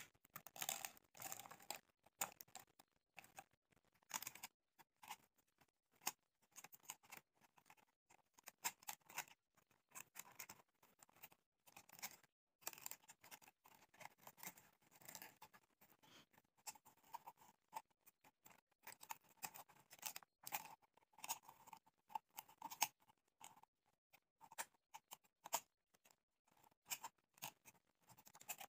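Faint, irregular crackling and clicking of cut green plastic soft-drink bottle pieces as they are handled and pressed into shape.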